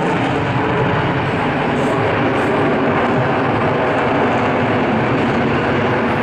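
Loud, steady jet roar from a Lockheed Martin F-22 Raptor's two Pratt & Whitney F119 engines.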